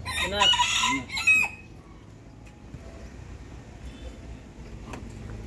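A rooster crowing once, loud, for about a second and a half at the start, ending in a falling note.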